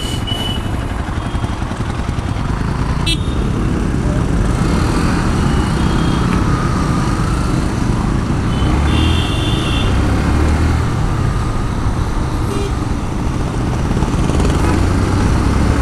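Yamaha FZ motorcycle engine running under way with wind and road noise, growing louder as the bike picks up speed. Vehicle horns toot briefly near the start and again about nine seconds in.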